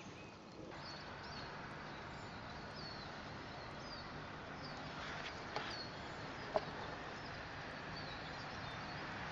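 A small bird chirping outdoors, repeating short high notes about once or twice a second over a steady hiss, with a couple of light clicks partway through.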